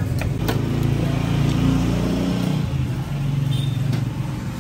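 Motor vehicle engine running on the road, a low steady hum that swells about a second in and eases off, with a couple of sharp knocks of a cleaver on a wooden chopping block near the start.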